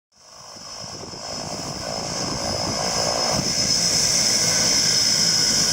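Propeller aircraft engines running steadily, growing louder over the first few seconds.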